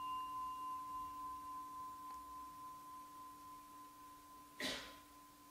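Singing bowl ringing on after a strike, fading slowly as two steady tones, a low hum and a clearer higher tone. A short soft rustle of noise comes about four and a half seconds in.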